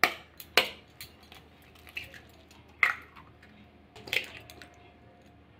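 Eggs being cracked on the rim of a bowl: several short, sharp taps of shell against the bowl, spread a second or so apart.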